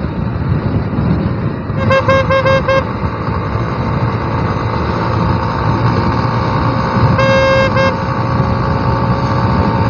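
Vehicle horn honking: a quick run of about four short toots about two seconds in, then one longer toot about seven seconds in. Underneath is the steady engine and wind noise of a motorcycle riding on a highway.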